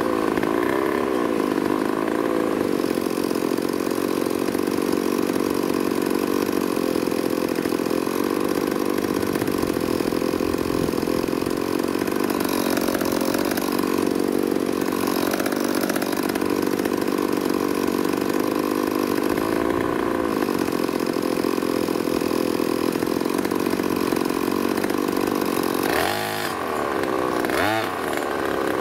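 Two-stroke brush cutter engine with an expansion-chamber exhaust and power filter, running steadily under a motorcycle-style twist throttle. Near the end the revs drop and pick back up quickly twice as the throttle is let go and twisted open again.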